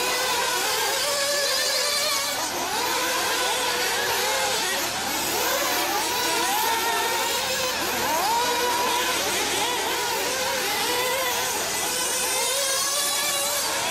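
Several 1/8-scale nitro RC buggy engines, two-stroke glow engines, running at racing speed. They rev up and back off over and over, so their whines keep rising and falling in pitch and overlap one another.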